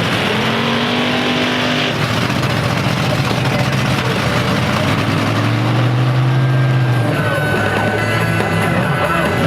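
Big engine revving up and back down twice, the second rev lower and louder, over a steady haze of crowd and arena noise with PA music underneath.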